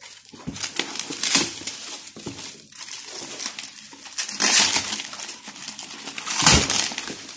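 Plastic wrapping crinkling and rustling as it is handled and pulled off a motorcycle rim, with louder crackles about a second and a half in, at four and a half seconds, and near the end.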